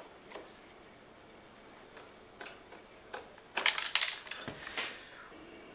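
Scattered clicks and knocks of a spot welder's sheet-metal case and front panel being handled and fitted back together, with a short burst of rapid clattering about three and a half seconds in, the loudest part.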